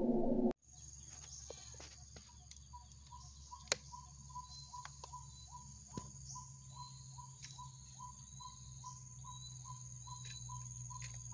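Rural field ambience: a steady high-pitched insect drone with a bird repeating a short, slightly falling call note about twice a second, and a few faint clicks. Music cuts off about half a second in.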